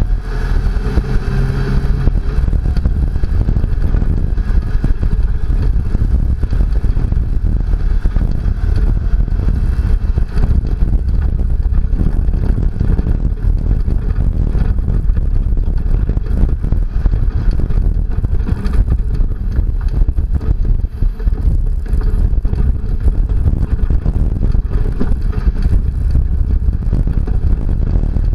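Second-generation Toyota Tacoma prerunner driving on a rough dirt road: engine, tyre and body noise as a loud, constant low rumble.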